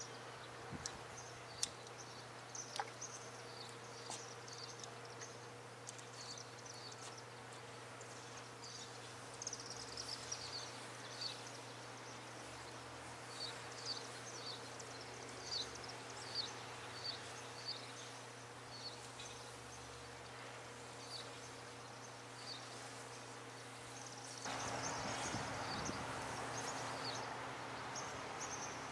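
Faint outdoor background of small birds chirping in short, scattered high calls over a steady low hum. A louder, even hiss comes in near the end.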